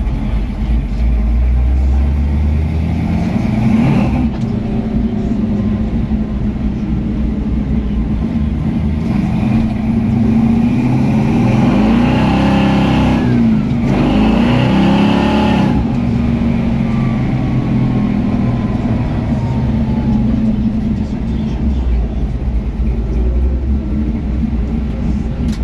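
A 1962 Chevrolet C10 pickup's 383 small-block V8 running under way, heard from inside the cab, with road and wind noise. Around the middle it is driven hard, and the revs climb and drop back twice.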